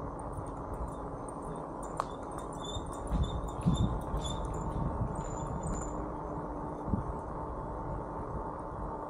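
Steady wind and rolling rumble on a handlebar-mounted camera while riding a bike along a campground road, with scattered faint high chirps and ticks over it.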